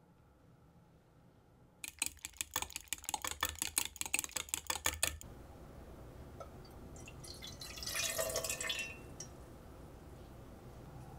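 Gas stove burner's igniter clicking rapidly for about three seconds until the flame catches, then the burner's steady hiss. Partway through, milk poured from a jug into an enamel saucepan splashes for about two seconds.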